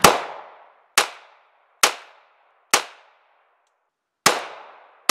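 Five 9mm pistol shots, each trailing off with a short echo: four from a Kahr CM9 about a second apart, then, after a pause, a shot from a Glock 43.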